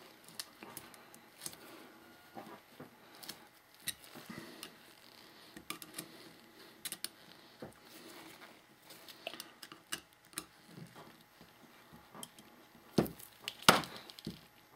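Small clicks, taps and rubbing from nitrile-gloved hands working epoxy putty around a metal tube and handling small metal parts, with a couple of louder knocks near the end.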